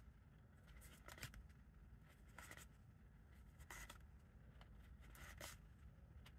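Faint, brief rustles of trading cards sliding against one another as they are flipped through one at a time, one slide roughly every second or so, with low room tone between.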